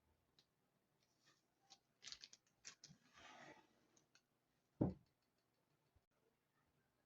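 Faint handling noises from small parts at a workbench: a cluster of light clicks and a brief scrape about two to three seconds in, then a single knock near the five-second mark.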